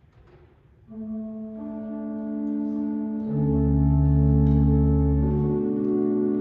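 Organ playing slow, sustained chords. The notes start about a second in and build up in layers, and a deep bass pedal note enters about three seconds in.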